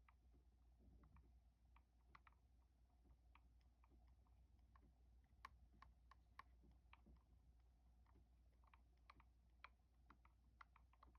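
Faint, irregular clicking: short sharp ticks at uneven intervals, a few a second, over a steady low hum.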